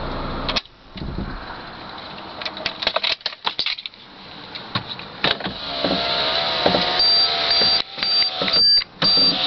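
Honda car engine running, then switched off about half a second in, with a few sharp knocks as it stops: the shutdown knock that can also be felt in the car. Clicks and rattles follow, and near the end a high beep repeats about twice a second.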